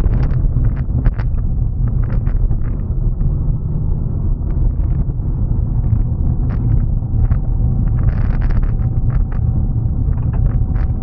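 Car driving on a gravel road, heard from inside the cabin: a steady low road-and-engine rumble with many short clicks and knocks scattered through it.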